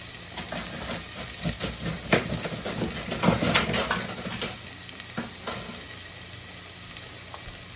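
Ground turkey sizzling in hot olive oil with onion and garlic in a pot, with a utensil knocking and scraping against the pot as it is stirred in, the knocks clustered in the first half.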